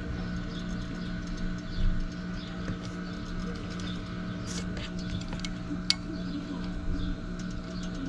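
A steady hum with scattered light clicks and taps of hand work, including a louder knock about two seconds in and a sharp click near six seconds.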